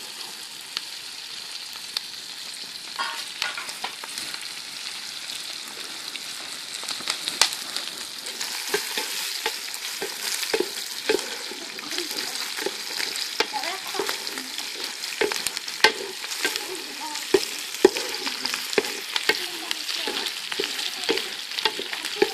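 Chopped shallots sizzling in hot coconut oil in a metal pot, stirred with a wooden spatula that scrapes and knocks against the pot. The sizzle and stirring grow louder and busier about eight seconds in.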